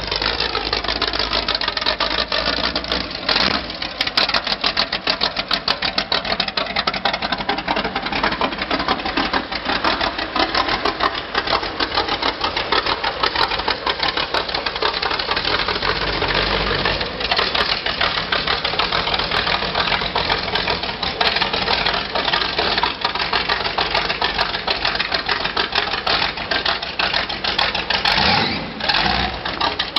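Custom V8 trike's engine running with open exhaust, a rapid, even train of firing pulses. The pitch drops away just after the start, and the engine dips and picks up again near the end.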